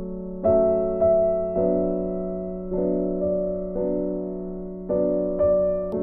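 Background piano music: slow chords struck about once a second, each dying away before the next.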